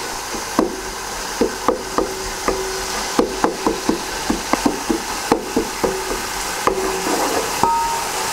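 Onion-tomato masala sizzling in ghee while a wooden spoon stirs and mashes it, knocking against the metal pot in a run of irregular clicks, some ringing briefly. The masala is being fried down until the tomatoes break into a gravy.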